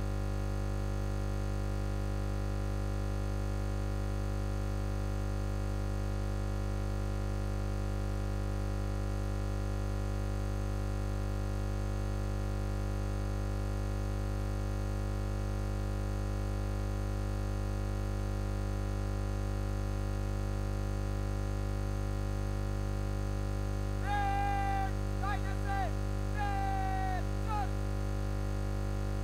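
A steady, unchanging electronic drone of several held tones, deepest and strongest low down, with no beat or melody. Near the end come three or four short pitched calls that slide down in pitch.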